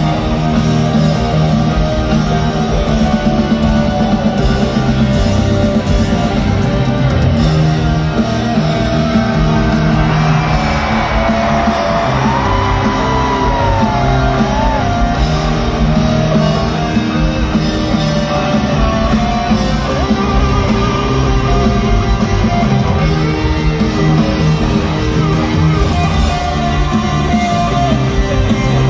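Rock band playing live in an arena, electric guitar to the fore over drums and keyboard, with no words sung. A high note slides up and down about halfway through.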